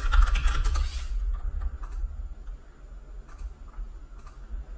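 Computer keyboard typing: a quick run of keystrokes in the first second, then a few single, spaced-out clicks, over a steady low hum.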